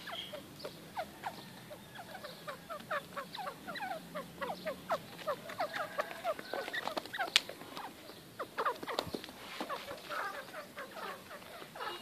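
Young francolins (teetar) calling, a quick run of short falling chirps, several a second, while they peck at the ground. A sharp click about seven seconds in.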